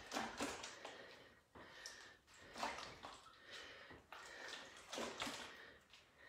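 Water sloshing inside a plastic container held against the body as a lunge weight, in repeated surges about once a second as each step back is taken.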